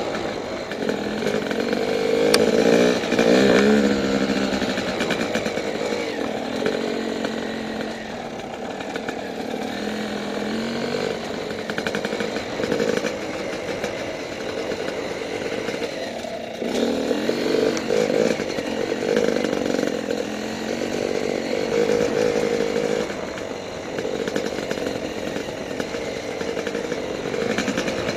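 Yamaha YZ250 two-stroke dirt bike engine running under way, its pitch climbing and falling back several times as the throttle is worked, with clear rising sweeps about two seconds in and again around sixteen seconds in.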